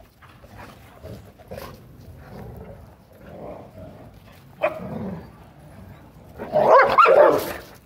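Several dogs vocalising at close range: low grumbling sounds, a sharp bark about two-thirds of the way in, then a loud burst of barking near the end.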